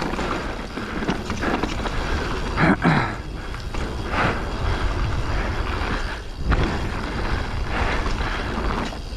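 Radon Jab enduro mountain bike riding down a dry dirt singletrack: tyres rolling and crunching over dirt and loose stones, wind rushing over the microphone, and the bike rattling over bumps, with a louder jolt a little under three seconds in.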